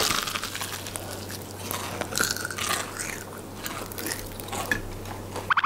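Several people biting into and chewing crispy-battered fried chicken close to microphones: a dense run of crisp crackles and crunches as the fried coating breaks.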